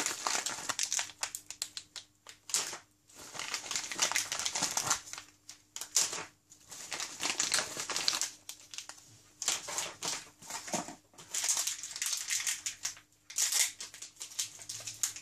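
Crinkling of plastic and paper packaging: a white mailer bag and small silver anti-static bags being handled and set down, in irregular bursts with short pauses.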